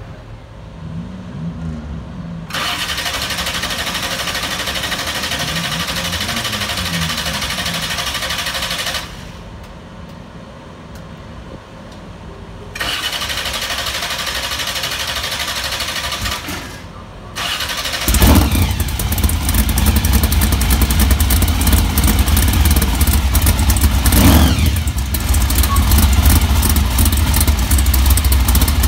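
Grave Digger monster truck's supercharged big-block V8 being started: two long whirring cranking spells, then the engine catches about two-thirds of the way in and runs loud and deep, with a brief rev a few seconds later.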